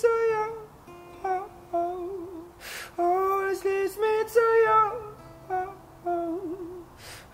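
Male voice singing a wordless melody in short, gliding phrases over a softly played acoustic guitar, with short hissing breaths between phrases.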